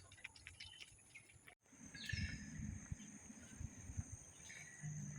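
Outdoor nature ambience: a steady high insect drone with a few short, falling bird chirps, over low rumbling thumps like wind or handling on the microphone. The sound cuts off abruptly about a second and a half in, then resumes louder.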